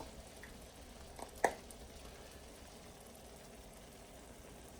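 Faint steady kitchen hum, broken about a second and a half in by one short clink of a utensil against cookware.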